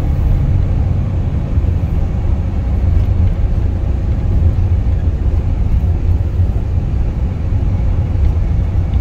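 Steady low rumble of engine and tyre noise heard inside the cabin of a Nissan NV350 Premium van driving along a paved road.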